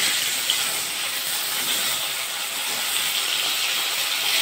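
Whole parshe fish sizzling steadily in hot mustard oil in a kadai, with a short sharp tap of the metal spatula about half a second in as the fish are turned over.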